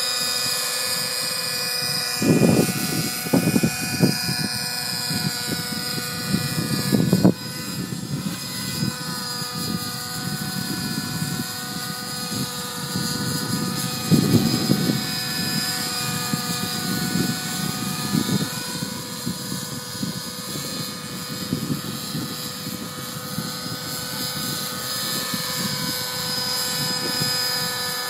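Helicopter flying near hover, a steady whine of several pitches that bends slowly up and down as it moves about. Wind gusts on the microphone rumble a few times, about two to four seconds in, near seven seconds and around fourteen seconds.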